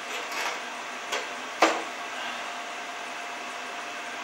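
Cut-out pieces of 3 mm aluminium plate being worked loose by hand, with a few light knocks and one sharp metallic clink with a short ring about a second and a half in, over a steady background hum.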